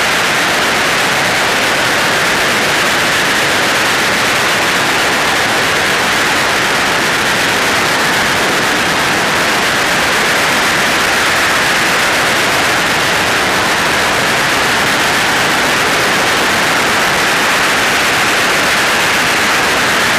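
A long string of firecrackers going off continuously at close range: a dense, unbroken crackle at a steady, high level.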